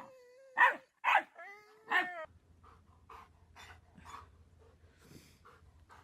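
A dog barking: three loud barks in the first two seconds, followed by softer, quieter dog sounds against a low hum.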